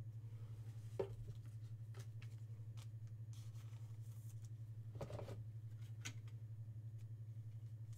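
Faint handling noise: a few soft clicks and rustles as a trading card is slipped into a plastic sleeve and rigid holder, over a steady low electrical hum.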